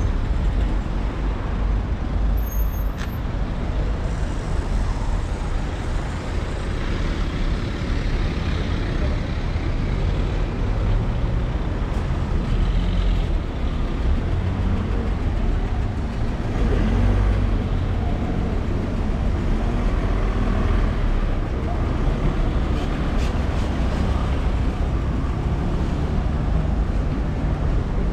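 City street traffic noise: cars and scooters passing, with a steady, deep rumble.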